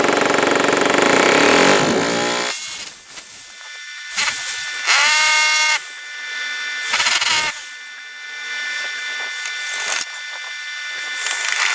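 Power drill with a masonry bit boring into brick, running hard and then winding down about two and a half seconds in. After that the drill is run again in a few short bursts, speeding up and slowing down each time.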